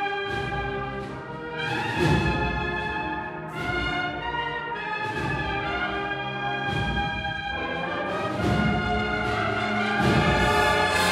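Cornet and drum band (banda de cornetas y tambores) playing a processional march: brass cornets hold full chords over regular drum strokes, swelling louder near the end.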